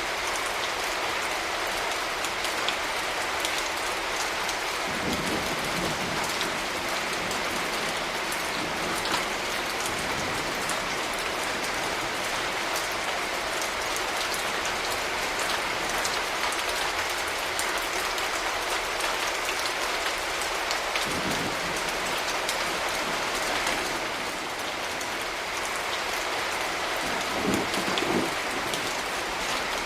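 Steady rain falling and pattering on surfaces, with scattered louder drops. A few brief low rumbles rise under it, the clearest near the end.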